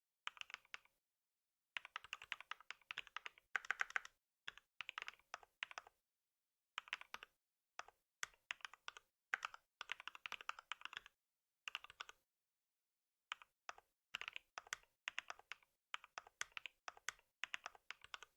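Typing on a computer keyboard: quick runs of keystrokes lasting a second or two each, broken by short pauses.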